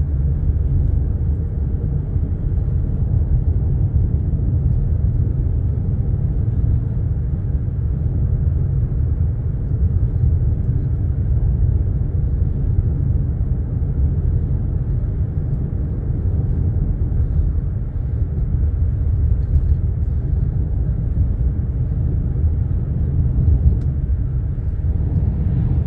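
Steady low rumble of a car driving along a road, heard from inside the cabin: tyre and engine noise with no change in pace.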